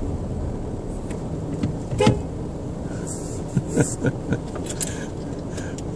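Car engine idling, heard from inside the cabin, with a few short knocks and squeaks about two seconds in and again near four seconds.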